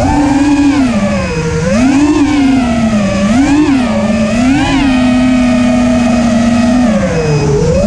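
5-inch FPV racing quadcopter's brushless motors and propellers whining, the pitch swooping up and down with each throttle punch, holding level for about two seconds, then dropping near the end.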